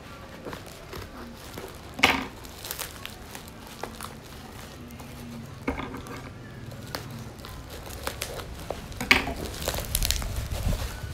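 Plastic packaging crinkling as an item is handled and unwrapped by hand, with louder crackles about two seconds in, around six seconds and again near nine seconds.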